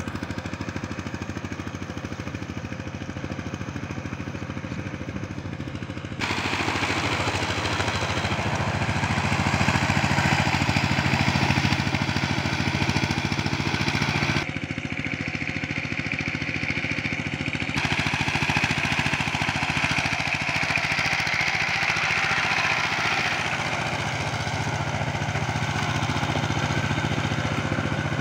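Saifing 12-horsepower single-cylinder diesel engine of a two-wheel power tiller running steadily while ploughing wet paddy land, labouring under a heavy load. It gets louder about six seconds in and changes tone again about halfway through.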